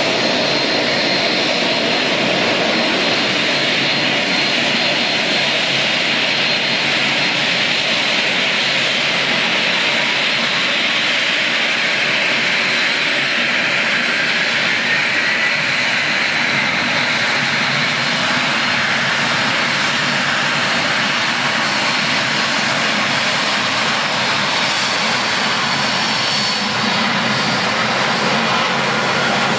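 Airbus A380 taxiing, its four Engine Alliance GP7200 turbofans running at taxi power: a steady jet whine with a high tone over a broad rushing noise, growing brighter in the middle as the airliner rolls closer.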